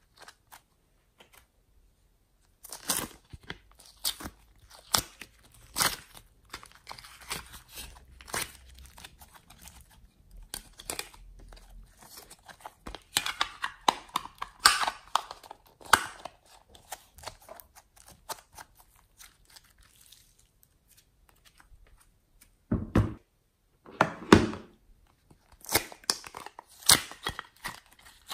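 Hands squeezing, stretching and pulling apart soft clay and slime: sticky crackling, popping and tearing sounds in irregular bursts. There is a quiet spell in the middle and two duller thuds a few seconds before the end.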